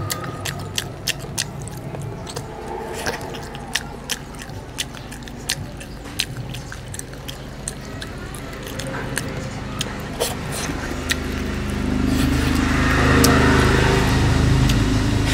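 Close-miked chewing of mutton and rice, mouth closed, with a steady run of sharp wet mouth clicks and smacks. In the last few seconds a louder low rumble swells up underneath.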